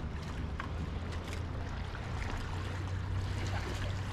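Outdoor water ambience: gentle water sounds and wind on the microphone, over a steady low hum.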